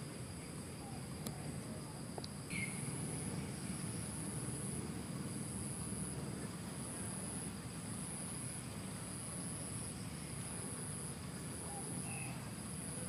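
Insects trilling steadily in a high band, joined about two and a half seconds in by a pulsing insect song that repeats a little less than once a second, over a low outdoor background hum.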